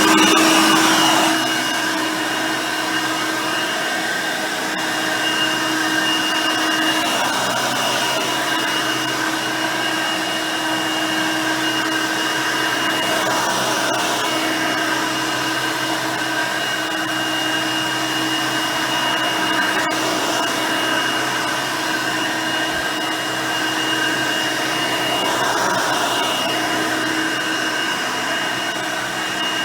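Hoover Elite High Performance upright vacuum (5-amp motor, 9-blade fan, single-row brush roll) running steadily while vacuuming. Its steady whine swells slightly now and then as it is worked across the floor.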